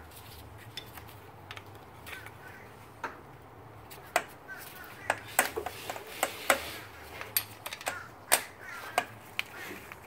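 Metal parts of a stock BMW E46 M3 shifter assembly clicking and clacking as they are handled and fitted against the transmission: a few light ticks at first, then a quick run of sharp clacks from about four seconds in.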